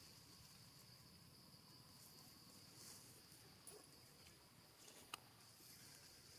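Faint, steady, high-pitched drone of insects in the background, with one small click about five seconds in.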